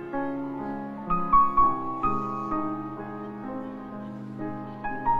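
Slow, gentle background piano music, single notes starting one after another and ringing on.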